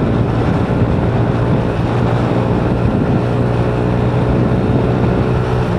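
Motorcycle engine running through an aftermarket Exos X6 exhaust muffler while riding, holding a steady engine speed with a constant low exhaust note.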